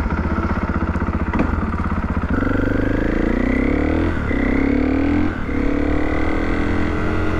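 KTM EXC 450 single-cylinder four-stroke engine running through an Akrapovič exhaust: pulsing at low revs, then accelerating with the pitch climbing, dropping twice at upshifts about 4 and 5.5 seconds in, and pulling on again.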